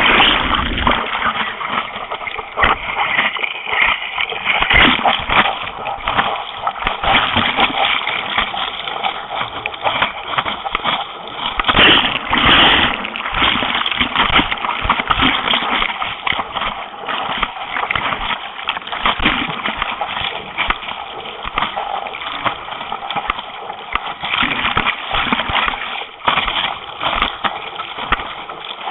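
Sea water splashing and rushing over a camera mounted on the nose of a surf racing board as it is paddled through the surf, in constant choppy surges.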